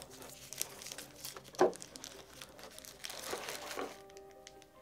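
Thin plastic packaging crinkling and crackling as a small figure is unwrapped and worked out of a clear plastic blister tray, with the loudest crackle about a second and a half in and another run of crinkling near the end.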